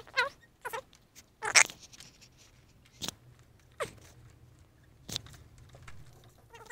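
Rubber handlebar grip squeaking and scraping as it is twisted and forced onto a scooter's handlebar: two short squeaks in the first second, a louder scrape about a second and a half in, then a few single scrapes and clicks.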